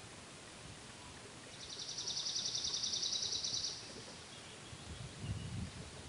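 A high, rapid trill lasting about two seconds, starting a second and a half in, over a steady outdoor hiss. Low rumbling bumps come near the end.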